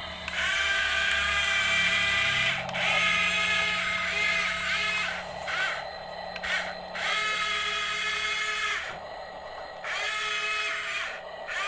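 Small electric motor of a toy excavator whining in repeated bursts of one to two and a half seconds, with short pauses between them.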